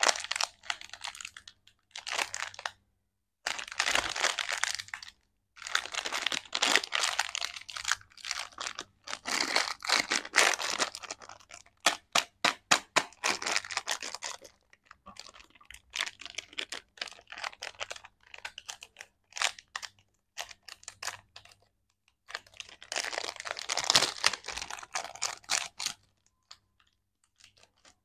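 Plastic candy wrapper of a PRAN Lollipop Wonder pack crinkling as hands squeeze and turn it, in repeated bursts with short pauses and a run of quick sharp crackles midway.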